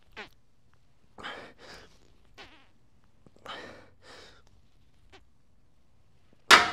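Forceful breaths, strained exhales that come in short pairs about every two seconds, during heavy barbell bench press reps. Near the end a loud, sharp metal clank as the loaded barbell is racked onto the bench's uprights.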